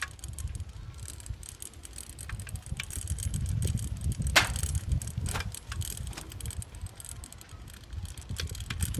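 Bicycle being ridden over a concrete path, its frame and parts rattling and clicking, with wind rumbling on the microphone. The sharpest click comes about four and a half seconds in.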